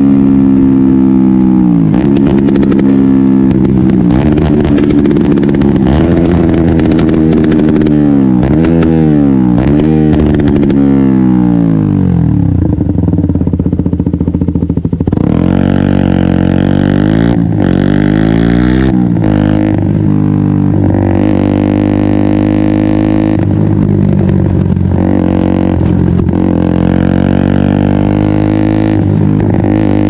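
KTM 125 Duke's single-cylinder four-stroke engine running as the bike is ridden. Its pitch falls and rises again several times in the first half, then holds a steadier note with a few short rises and falls.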